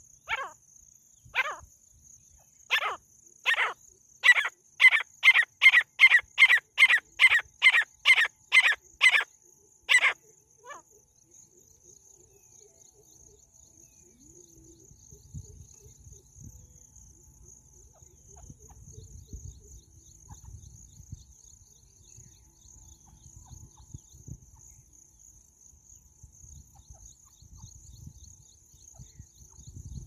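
Female francolin (teetar) giving a loud series of harsh call notes. The notes start a second or so apart, then speed into a steady run of about two a second, and stop about ten seconds in.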